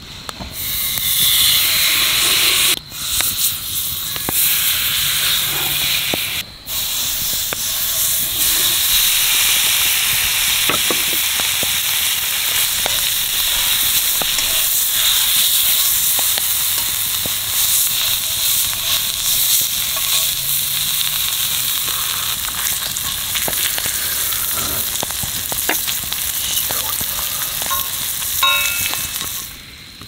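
A thick wagyu steak sizzling loudly in a hot iron frying pan, seared fat edge first to render out the beef fat. The sizzle breaks off for a moment twice within the first several seconds, then fades out just before the end.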